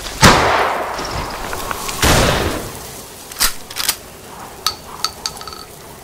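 Intro sound effects: two loud blast-like hits about two seconds apart, each with a long fading tail, followed by several lighter sharp clicks and clinks.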